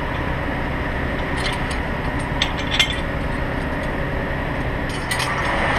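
A steady engine rumble, with a few sharp metallic clicks and clinks over it in small clusters: about a second and a half in, twice between two and a half and three seconds, and near the end.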